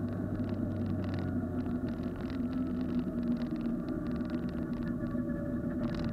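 Honda Civic track car's engine running at steady revs with road noise, heard from inside its stripped cabin, with light irregular rattling from the interior.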